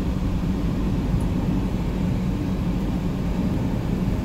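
Steady low rumble of a car driving along, road and engine noise heard from inside the cabin.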